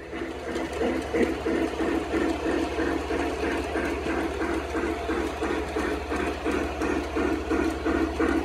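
Model steam locomotive running along the track: a steady motor and gear hum under a rhythmic mechanical clatter about three times a second.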